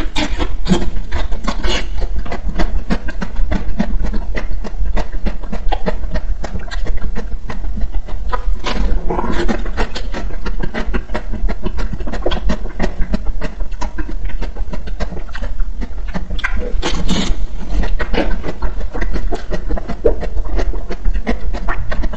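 Close-miked biting and chewing of a frozen ice cream bar: the hard coating crackles and crunches between the teeth in a dense run of quick clicks, with louder bursts of crunching about nine and seventeen seconds in.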